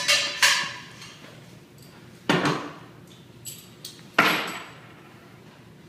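Sharp metallic clanks, each with a short ring: two close together at the start, another a little after two seconds, and one just after four seconds, as metal parts of a switch chassis and tools are handled.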